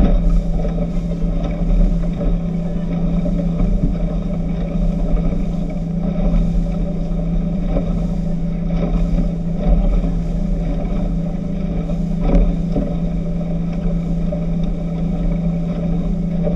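Speedboat engine droning steadily at a constant pitch, heard from on board, with a low rumble underneath.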